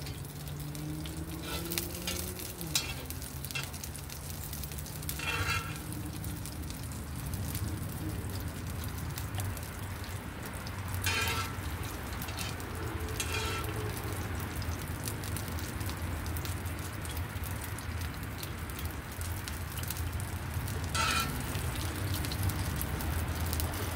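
Oil sizzling steadily in a cast-iron skillet as shrimp fritters fry, with a few short sharp knocks now and then.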